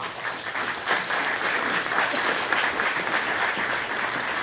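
Audience applauding. The clapping swells over about the first second, then holds steady.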